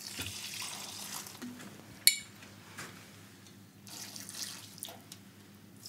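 Water poured into potted plants, in two spells of pouring with a short pause between them. A sharp click about two seconds in.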